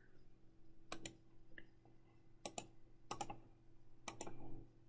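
Faint, sharp key clicks, several of them, often in quick pairs about a second apart, as the numbers of a multiplication are keyed in to be calculated.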